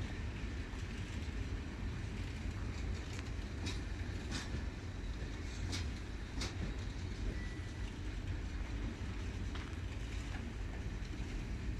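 Loaded freight flat wagons rolling slowly on the rails: a steady low rumble, with a few irregular sharp clacks of wheels on the track and a brief squeal about seven seconds in.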